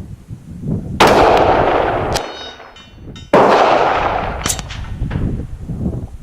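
Two rifle shots from a 16-inch AR-15-pattern rifle in .223 Remington, about two and a half seconds apart, each a sharp crack with a long fading echo. Wind gusts buffet the microphone between the shots.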